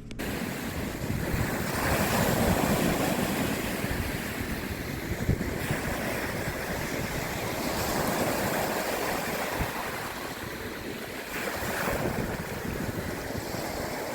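Steady rushing noise like ocean surf, swelling and easing over several seconds.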